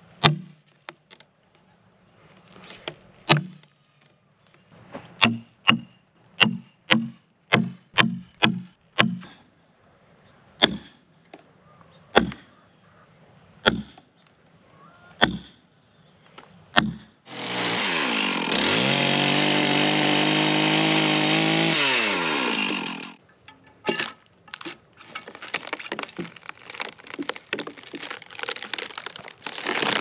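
Sledgehammer blows drive steel wedges into a dry, long-dead white oak log to split it: a long run of sharp strikes, about two a second at first, then one every second and a half or so. About 17 seconds in, a Stihl chainsaw revs up, runs for about five seconds and winds down. A dense crackling and splintering of wood fibres tearing apart follows.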